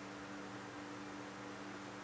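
Room tone: a steady electrical hum with even hiss, and no distinct handling or crimping sounds.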